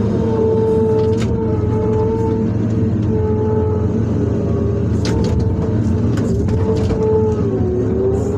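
Excavator's diesel engine running under load, with a hydraulic whine that dips and rises as the machine works and a few sharp knocks.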